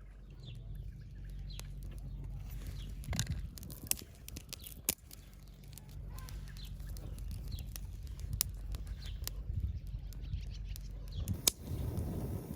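Birds chirping, with scattered sharp clicks and taps over a low steady hum.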